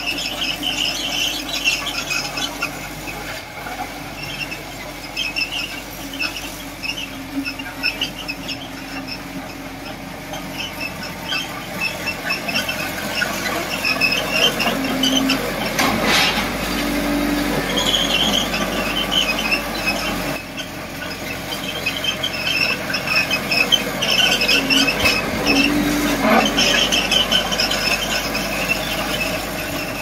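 Bulldozer's steel crawler tracks squealing in many short, high-pitched squeaks as the machine travels, over its running diesel engine, with a couple of sharp metallic clanks.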